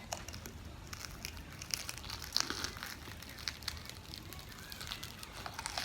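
Close-up mouth sounds of someone chewing a Flaming Hot Funyuns cheese dog: scattered short wet clicks and crunches, a little louder about two and a half seconds in.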